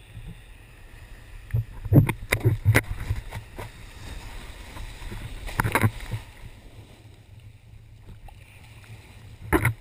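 Water rushing and splashing against a board ridden through shallow surf, picked up by an action camera mounted on the board, with low wind rumble on the microphone. A cluster of sharp knocks and splashes comes two to three seconds in, another around six seconds, and more near the end.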